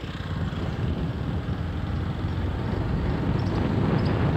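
Motorcycle engine heard from the rider's seat, accelerating and getting steadily louder, with wind rushing over the microphone.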